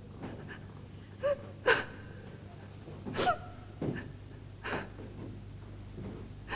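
A woman's short, sharp gasps and sobbing breaths in distress, about six of them, some catching into a brief cry.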